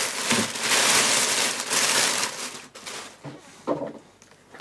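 Plastic packaging crinkling as it is handled, stopping about two and a half seconds in, followed by a few soft knocks.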